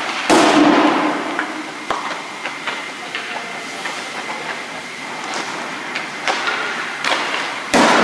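Ice hockey shots in an echoing indoor rink: a loud crack of stick on puck about a third of a second in, ringing around the arena, then scattered clacks of sticks and pucks and a second hard shot near the end.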